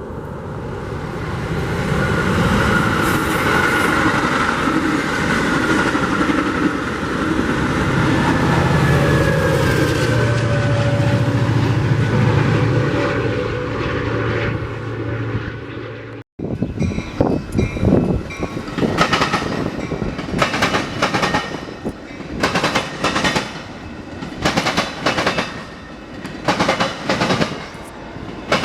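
A train passing close by: a steady loud rumble with a low engine hum and a slowly falling tone for about sixteen seconds. After a sudden break it turns to a run of repeated clacks of wheels over rail joints.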